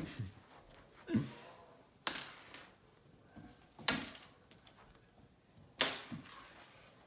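Sharp knocks about every two seconds, with a duller thump about a second in, from cats playing: the clatter and landings of active cat play.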